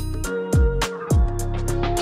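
Background music with a beat: deep kick drum hits falling in pitch and crisp ticking percussion over held chords.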